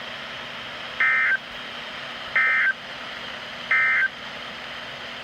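Three short bursts of EAS digital data tones (the two-tone SAME signal), each about a third of a second long and about a second and a half apart, over steady radio hiss: the End of Message code that closes an Emergency Alert System warning broadcast.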